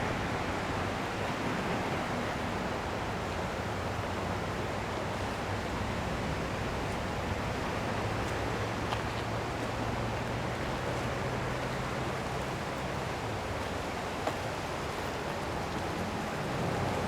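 Steady rush of the flooded Platte River's fast-flowing water, an even unbroken noise.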